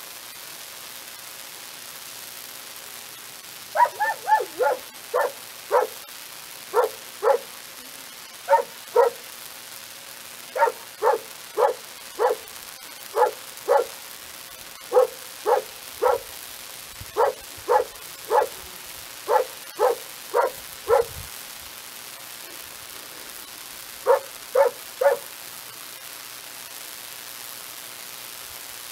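Small shepherd dog barking in short, sharp barks, about thirty of them in pairs and quick runs over some seventeen seconds, then a pause and a last run of three.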